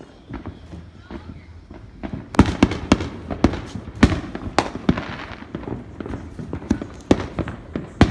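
Fireworks going off: a rapid string of sharp bangs and cracks, thickest from about two seconds in, after a quieter start, then thinning to scattered pops.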